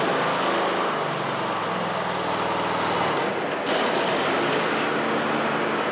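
Troy-Bilt Bronco riding mower's engine running just after starting. About three and a half seconds in, the blades are engaged with the newly fitted deck belt and start spinning under the deck, adding to the engine sound. This is a test of the belt replacement.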